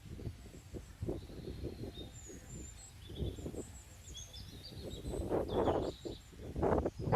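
Small birds chirping and calling in the background, over an irregular, close scuffling noise that gets louder about five seconds in.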